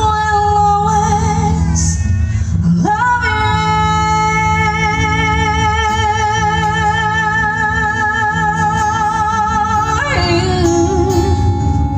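A woman singing with acoustic guitar accompaniment. She holds a long note with vibrato from about three seconds in to about ten, with guitar chords underneath.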